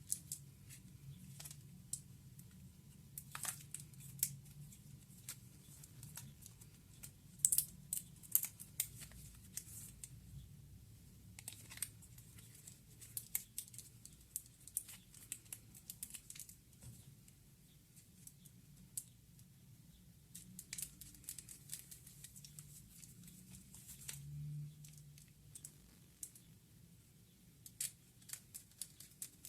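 Scattered light clicks and taps of small parts being handled during work on a laptop, with a busier run of clicks about a quarter of the way in, over a faint steady low hum.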